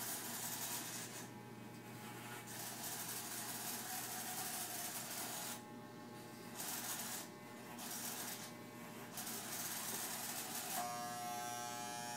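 Corded electric hair clippers buzzing steadily as they shave a head. The high hiss drops away briefly several times.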